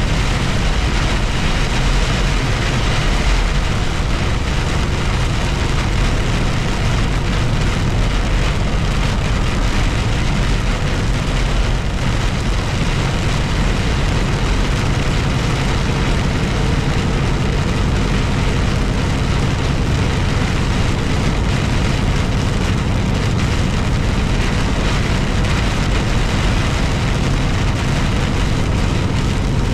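Steady road noise inside a vehicle driving at highway speed: a low engine drone and tyre roar, with the hiss of rain on the vehicle.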